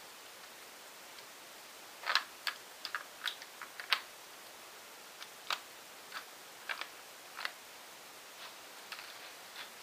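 Hard plastic clicks and clacks from a Lego brick bolt-action rifle being handled and worked. About fifteen short, sharp clicks come in irregular clusters, starting about two seconds in.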